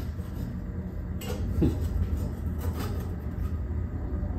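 A steady low rumble, with a couple of light knocks as a steel positioning jig is set against a Triumph TR6's steel chassis frame.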